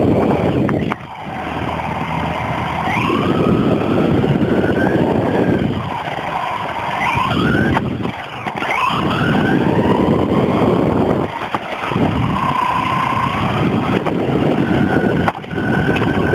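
Radio-controlled car's motor running, recorded from on board: a whine that rises in pitch several times as it speeds up, over the loud rattling rumble of its wheels on the ground. The sound drops out briefly three times.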